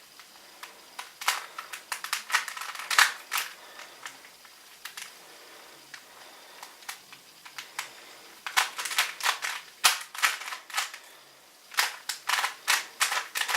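Rubik's Cube being turned by hand, its plastic layers clicking and clacking in quick runs of turns. The turning thins to a few scattered clicks in the middle, then picks up again in a fast run near the end.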